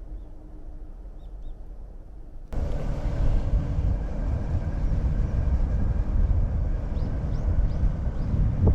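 Quiet background with a few faint bird chirps, then, about two and a half seconds in, an abrupt change to a loud, gusting low rumble of wind buffeting the microphone, with a few short bird chirps near the end.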